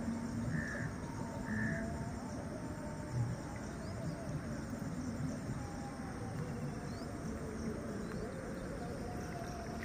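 Steady rush of muddy floodwater flowing through a field channel, with insects and a couple of short bird chirps in the background.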